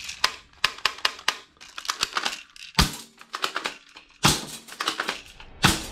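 Hard plastic toy guns clacking and clicking against each other as they are handled and shifted in a cardboard box: a string of irregular knocks, with two louder clacks in the second half.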